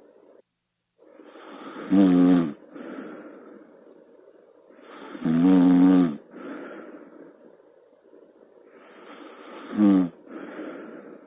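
A sleeping person snoring: three loud, rough snores about four seconds apart, each followed by a shorter, weaker breath.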